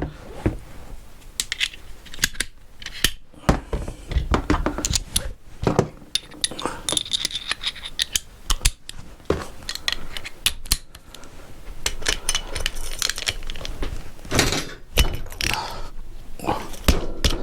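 Hand tools and metal engine parts clinking and clattering as an engine is taken apart: many short, irregular knocks and rattles of metal on metal.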